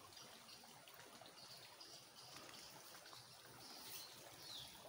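Faint steady trickle of running water in a stone-lined channel.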